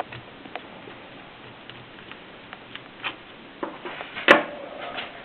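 Mercedes 6 typewriter clacking: scattered, irregular key strikes with one much louder mechanical strike a little past four seconds in.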